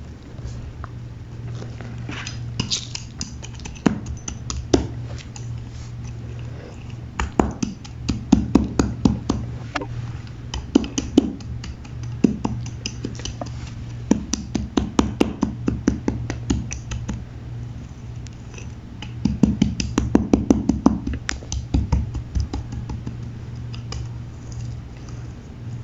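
A pressed cake of gym chalk being crushed, crackling and crunching in clusters of rapid small snaps that come in several bursts a few seconds apart. A steady low hum runs underneath.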